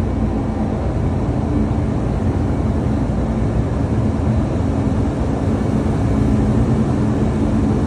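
Self-unloading freighter's tunnel conveyor running: belts and rollers carrying cargo during unloading, a steady, loud machinery rumble with a constant low hum.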